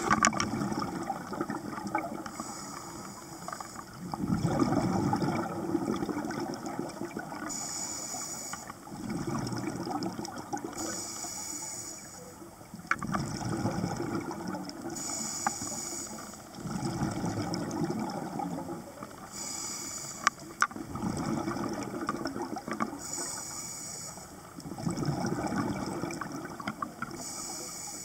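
Scuba diver breathing through a regulator underwater: a short high hiss on each inhale, then a longer rumbling gush of exhaled bubbles, about one breath every four seconds. A couple of sharp clicks stand out, one about two-thirds of the way in.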